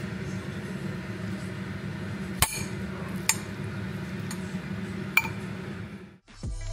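Dishes and utensils clinking three times, short sharp clinks over a steady low hum.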